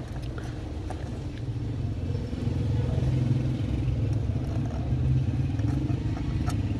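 A motor vehicle engine running steadily, a low hum that grows a little louder about two seconds in, with a few light clicks.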